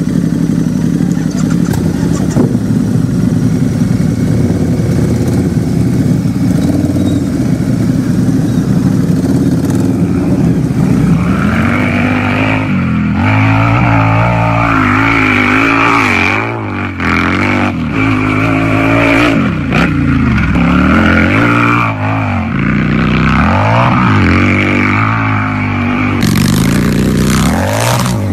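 Harley-Davidson V-twin motorcycle engine idling steadily, then revved again and again, its pitch rising and falling with each blip of the throttle.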